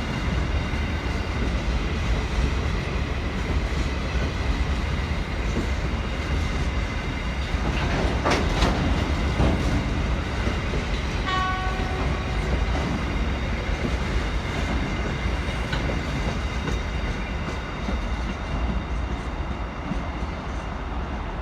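Freight train rolling past: a steady rumble of wheels on rails with clattering over the rail joints, a louder run of clanks about eight seconds in, and a brief tone halfway through.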